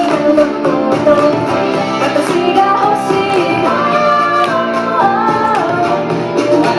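Pop song with female singing over a full backing track.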